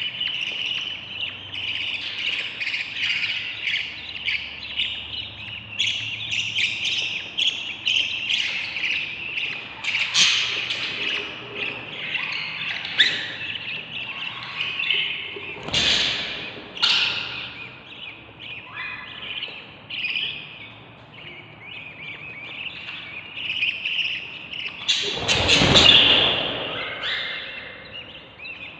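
Baby budgie chicks in a nest box chirping and begging for food in a dense, continuous high-pitched chatter. Two sudden thumps cut through, about halfway and a louder one near the end.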